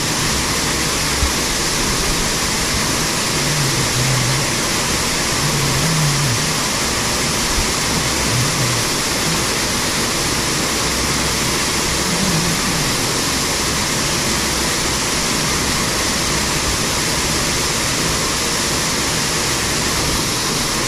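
Waterfall of a mountain torrent pouring down a narrow rock gorge close by: a loud, steady rush of falling water.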